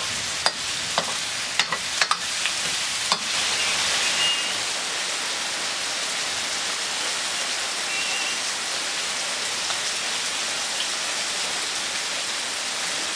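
Food frying in a metal wok over a wood fire: a ladle scrapes and clicks against the pan several times in the first three seconds, then a steady sizzling hiss.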